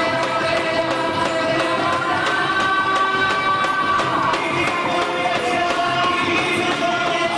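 Festa junina folk music with singing over a steady percussion beat.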